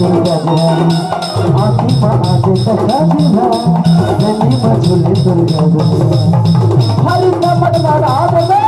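Instrumental passage of a Chhattisgarhi folk song played live: a keyboard melody over a fast, steady dholak and percussion beat.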